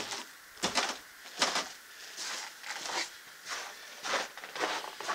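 Footsteps crunching in snow, a step about every two-thirds of a second.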